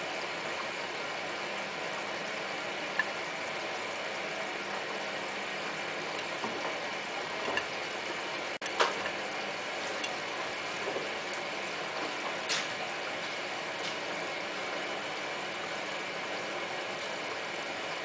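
Hotpoint Ultima WT960 front-loading washing machine turning its drum during the first rinse: a steady mechanical whir of the motor and tumbling wet laundry, with a few light clicks and knocks, the loudest about nine seconds in.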